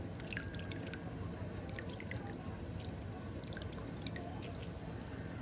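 Scattered small drip-like pops and clicks over a steady low hum, in two clusters: one in the first two seconds or so, another around the fourth second.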